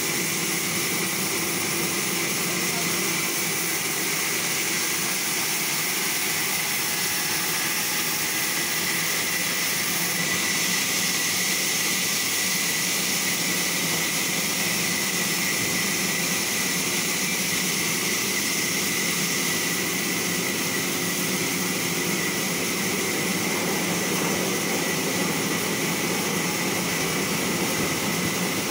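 Sawmill saw machinery running steadily: a constant high tone over an even hiss, with no change in level.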